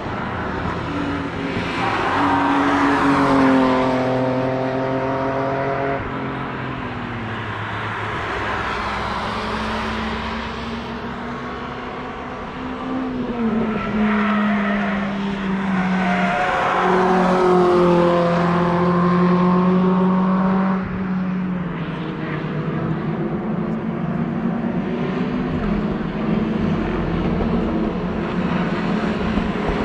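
Track cars passing one after another at speed, each engine note falling in pitch as it goes by. One car holds a steady note for a few seconds before it drops away, and another engine builds up near the end.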